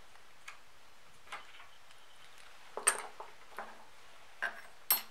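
Scattered small clicks and light knocks as a small black capsule with a key ring is handled and taken out of a bored wooden handle end. They are faint at first, then sharper and closer together from about three seconds in, loudest around three seconds in and again near the end.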